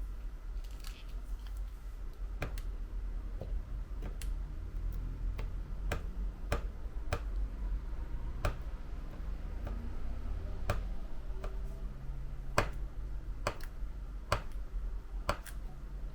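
Small sharp clicks, about a dozen at irregular intervals, of hand repair tools working at an iPhone 11 Pro Max's battery to pry it free of its adhesive, over a steady low hum.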